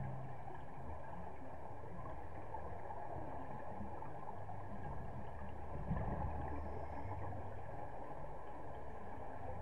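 Muffled underwater ambience in a diving pool: a steady low rumble and hum, with a louder gurgling swell about six seconds in, like a scuba diver's exhaled bubbles.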